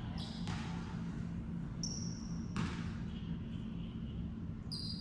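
A basketball bouncing hard on a gym floor a few times, with two short rubber sneaker squeaks on the court, one about two seconds in and one near the end, over a steady low hum in the hall.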